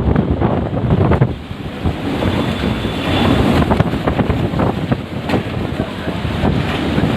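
Strong storm wind rushing and buffeting the microphone, easing briefly about a second and a half in before picking up again.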